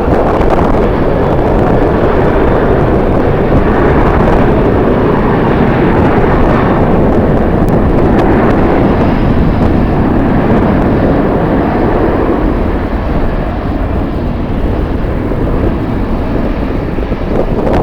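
Jet airliner engines running loud and steady as the aircraft passes, mixed with heavy wind noise on the microphone.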